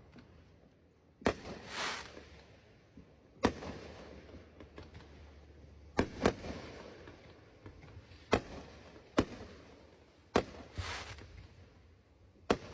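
Aerial fireworks shells bursting one after another, about eight sharp bangs a second or two apart, some followed by a crackling sizzle as the stars burn out.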